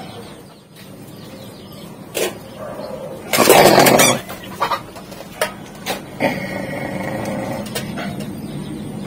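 Animal calls, with a loud rustling noise lasting about a second partway through and a few sharp clicks after it.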